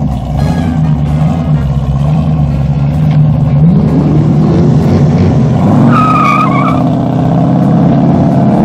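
Ford Mustang doing a burnout: the engine held at high revs, rising in pitch a few seconds in, with the rear tyres spinning on the tarmac and a brief high tyre squeal about two-thirds of the way through.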